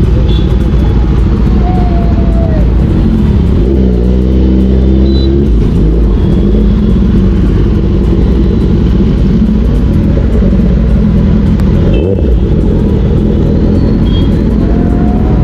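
Kawasaki Ninja ZX-10R's inline-four engine running at low speed through slow traffic, a loud, steady low rumble. A held, steady-pitched note sounds for about a second and a half around four seconds in.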